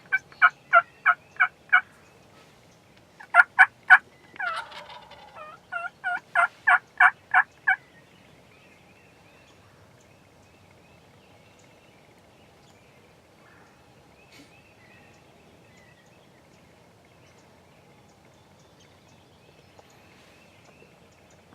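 Wild turkey sounds: a run of sharp, evenly spaced yelps, a tom turkey gobbling about four and a half seconds in, then another run of yelps that stops at about eight seconds, after which there is only faint outdoor background.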